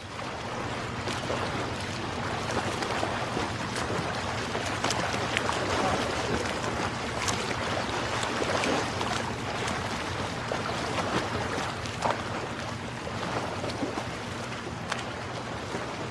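Steady rushing water noise with many small crackles and splashes, over a low steady hum.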